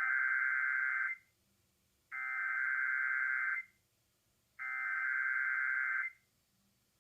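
Emergency Alert System SAME header: three identical bursts of buzzing digital data tone, each about a second and a half long, with roughly a second's gap between them. These signal the start of an EAS test broadcast.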